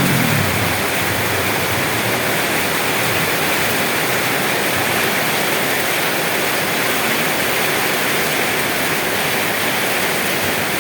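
Steady heavy rain falling, an even unbroken hiss. A low rumble fades out just at the start.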